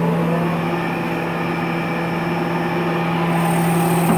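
Woodworking machinery running with a steady low hum; about three seconds in, a high hiss joins it.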